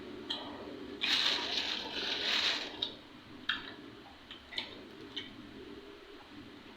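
A person eating rambutan close to the microphone: a rough, crackly burst of noise lasting under two seconds, then a handful of sharp, scattered mouth clicks and smacks.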